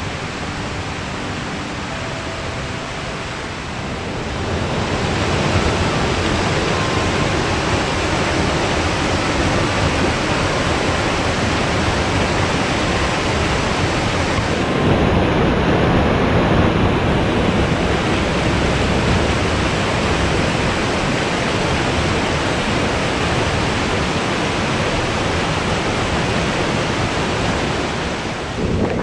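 Mountain stream rushing and cascading over boulders in a steady, unbroken rush of water. It grows louder about four seconds in.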